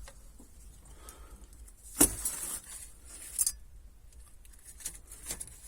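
A few sharp clicks and clinks of small hard objects being handled: a loud one about two seconds in with a short rattle after it, another a second and a half later, and two fainter ones near the end.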